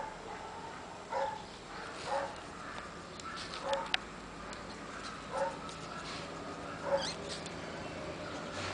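A dog whimpering in short yips, about five in all, spaced a second or two apart.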